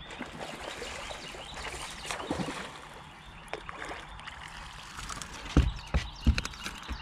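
Water splashing as a hooked bass is fought to the boat, with scattered clicks. Near the end come several heavy thumps as the fish is swung aboard and lands on the boat deck.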